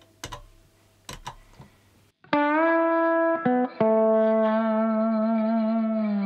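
A couple of faint clicks as a pedal is stepped on. Then, about two seconds in, a 1976 Gibson ES-335 electric guitar played with a slide through the Origin Effects Slide Rig compressor and the Xotic RC Booster: long sustained slide notes with a slight wavering vibrato, gliding down at the end.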